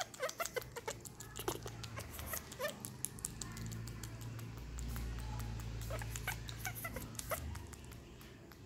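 Baby macaque giving short, high squeaks and whimpers, scattered through many small clicks. A low steady hum runs underneath and swells in the middle.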